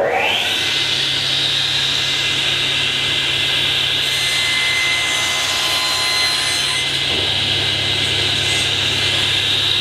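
Sliding table saw running steadily with a whine, its blade crosscutting a small piece of wood clamped to the sliding carriage.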